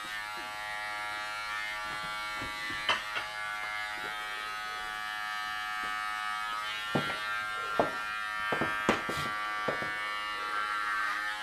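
Corded electric hair clippers running with a steady buzz while shaving a head. A few short clicks come through, most of them between about seven and nine seconds in.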